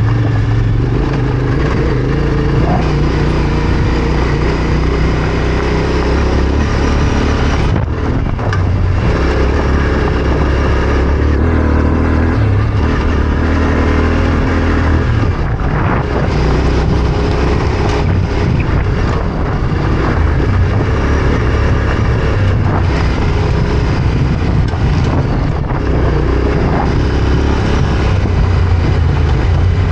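Yamaha Ténéré 700's parallel-twin engine running while riding off-road, its note stepping up and down several times with throttle and gear changes. It sits over a steady rush of wind and tyre noise.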